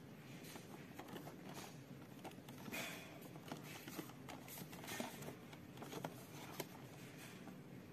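Faint rustling and light, irregular taps of a cardboard product box being handled and turned over in the hands.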